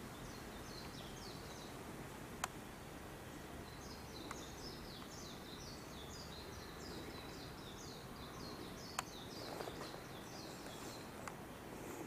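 A bird chirping: a run of short, high, falling notes about three a second, over steady outdoor background noise. Two sharp clicks cut through, one a couple of seconds in and a louder one about nine seconds in.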